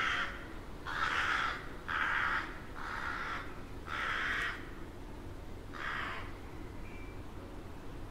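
Rook cawing: a series of caws about half a second each, roughly one a second, then a pause before one more call near the end.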